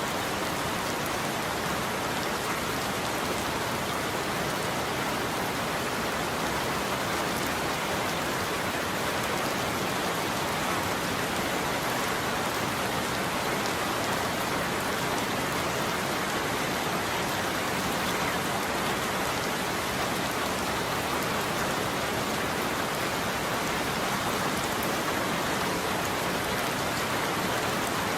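Steady rain falling on a roof, an even hiss of many drops with no thunder.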